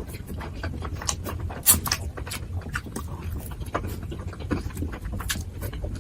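Close-up mouth sounds of a person eating dumplings: wet chewing and smacking lips, a rapid irregular string of sharp clicks over a low rumble, with one louder smack a little under two seconds in.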